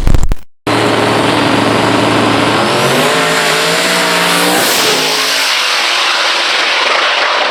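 Twin-turbo no-prep drag car launching and accelerating hard down the strip: the engine note climbs in pitch for a few seconds and then fades as the car pulls away, under a loud, steady rush of noise.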